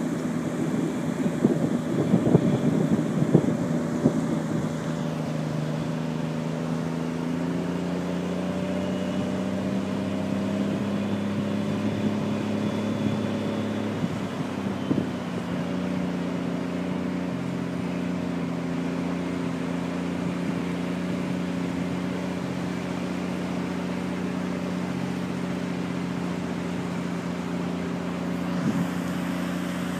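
Eight-wheeled amphibious personnel carrier's engine running as it drives across beach sand, a steady drone whose pitch sinks a little about halfway through and then holds. Wind gusts on the microphone in the first few seconds.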